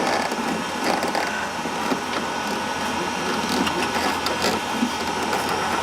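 Rustling, scraping and small clicks from wires of a car door's wiring harness being handled and pushed through a tight passage, over a steady background hum.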